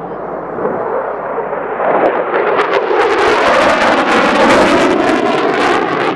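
Boeing F/A-18F Super Hornet's twin jet engines roaring as it flies a display pass overhead, swelling about two seconds in and crackling from then on.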